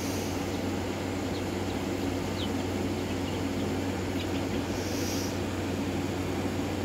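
A steady machine hum and whirr, with a few faint, short high chirps from a bird and a brief hiss about five seconds in.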